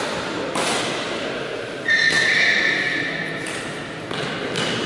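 Badminton rally sounds echoing in a sports hall: a few sharp knocks from racket strikes on the shuttlecock and players' footfalls, plus a high squeak of a court shoe on the floor lasting about a second, starting about two seconds in.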